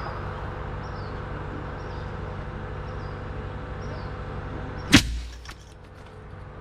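Throw line rushing out with a steady hiss after an APTA air-cannon shot, ending a little before the five-second mark with one sharp loud crack and thud.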